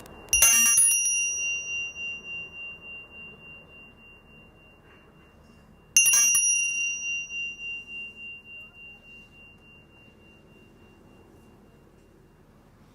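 Meditation bell struck twice, about six seconds apart, each strike ringing out and fading slowly with a wavering pulse; it signals the end of the meditation sitting.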